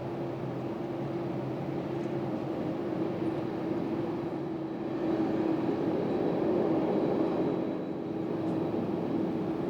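Boeing 767-200 jet engines running at taxi power: a steady rumble with one held tone, swelling a little about five seconds in and easing off again near the end.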